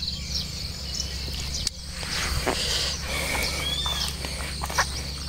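Footsteps swishing through dry rice stubble and grass, with insects chirring steadily and a bird calling a few times, over a steady low rumble.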